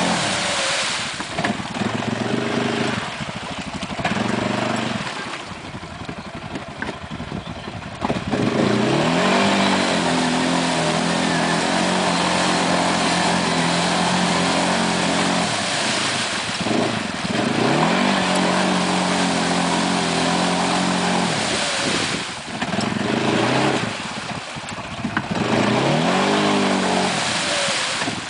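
Arctic Cat 700 Mud Pro ATV engine running hard off-road, revving up three times and holding high revs for several seconds each time, dropping to rougher, lower running between.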